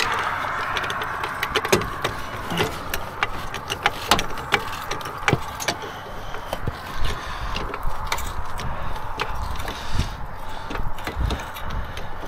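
Scattered clicks and clanks of tire-change tools and metal parts being handled, over a steady background hum.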